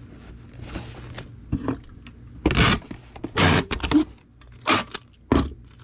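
Packing noise from a cardboard Priority Mail shoebox holding a bubble-wrapped model kit being handled and closed: several short scraping, rustling bursts, the loudest about halfway through.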